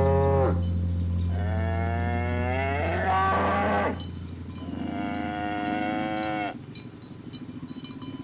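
Cattle mooing: a call ending just after the start, then two long moos, the first rising in pitch at its end. A steady low drone lies under the first half, and light clinks come near the end.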